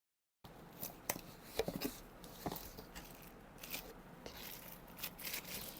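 Speaker packaging being opened and handled by hand: scattered faint clicks, rustling and tearing sounds, starting about half a second in.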